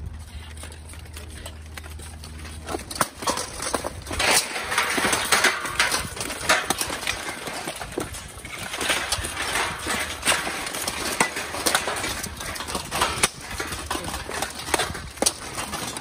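Armored melee: steel weapons striking plate armor and helmets, with dense clanks and knocks as armored fighters collide and shove. The clashing starts about three seconds in, after a quieter opening.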